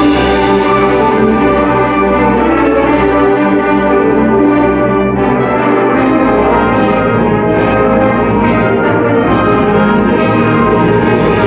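Concert band of winds and percussion playing a fanfare, brass to the fore in loud sustained chords.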